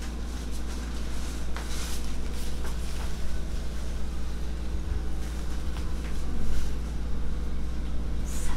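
Steady low hum of a window-type air conditioner running, with a few faint clicks and rustles of movement.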